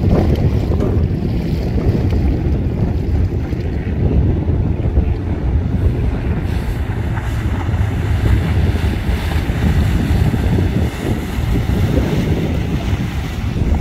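Wind buffeting the microphone over choppy water, with the 2001 Pursuit 2860 boat running at planing speed as it comes closer and passes. The wind rumble is the loudest part throughout.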